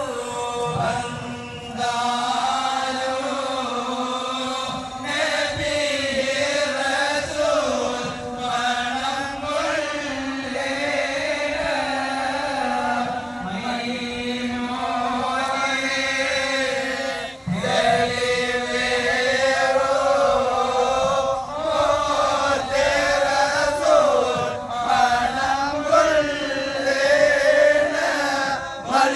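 Marchers in a procession chanting together: a melodic devotional chant sung in repeated phrases, with a short break a little past halfway.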